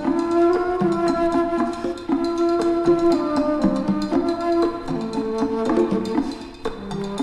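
Instrumental music from a record, with light percussion clicks over held and struck pitched notes.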